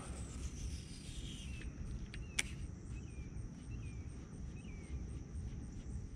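Dawn lakeside ambience: insects trilling steadily, with a few short, wavering bird chirps from about two and a half seconds in, over a low steady rumble. Two sharp clicks come about two seconds in.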